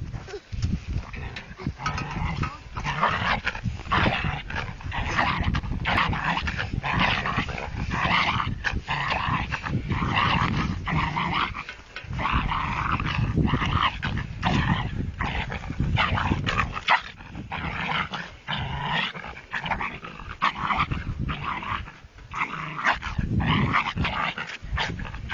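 Small dog growling almost without a break as it goes for a cat held in someone's arms.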